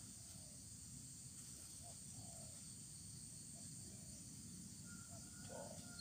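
Faint outdoor ambience: a steady low rumble with a few faint, short, distant calls scattered through, and a thin faint tone coming in near the end.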